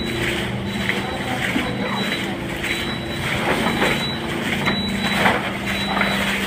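Steady mechanical running noise with a low, even hum.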